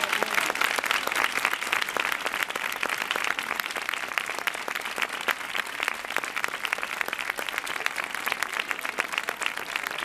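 Crowd applauding: many hands clapping in a dense, steady stream that eases a little toward the end.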